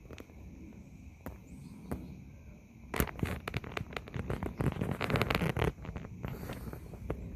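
Crackling rustle of tent fabric and bedding as someone shifts about inside a nylon tent, densest for about three seconds starting about three seconds in.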